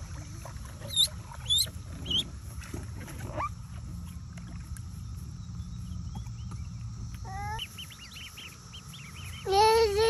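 Ducklings peeping in short high chirps, a few at first and then many together in the second half. Near the end a child's voice calls out, louder than anything else.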